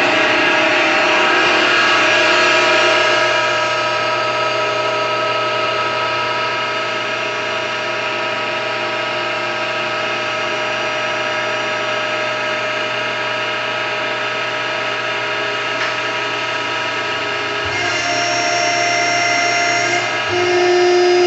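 Selco V5-HD hydraulic vertical baler running: its electric motor and hydraulic pump give a steady whine with several tones. The pitch shifts about 18 seconds in and again about 20 seconds in.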